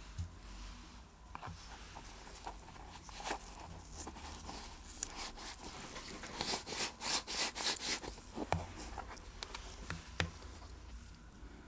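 Small clicks and taps from hands and tools working on a Seiko Kinetic watch during reassembly, with a run of about six quick scraping strokes in the middle.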